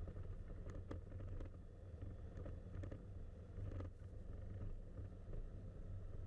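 Grumman Tiger's four-cylinder Lycoming engine idling during the landing rollout, a steady low drone with a few faint clicks and knocks.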